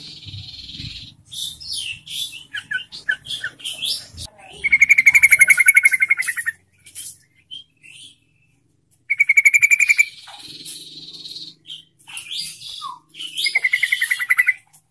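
Yellow-vented bulbul (trucukan) singing: quick chirps and whistled notes broken by three loud, rapid, rattling trills, a long one near the middle, a short one about nine seconds in and one near the end. It is a lively, full song.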